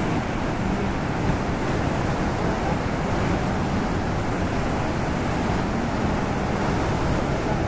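White-water rapids of the River Nile rushing and churning over rocks, a loud, steady noise with no let-up.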